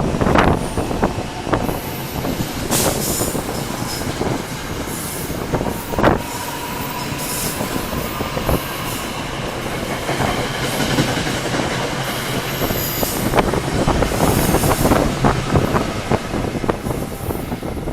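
Electric passenger train passing along the tracks: a steady rush of wheels on rail with repeated clacks, and a faint wheel squeal in the middle.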